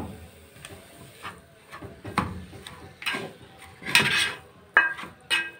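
A plastic spoon scraping and knocking against a nonstick pot as raw minced meat is broken up and stirred, in several separate strokes about a second apart.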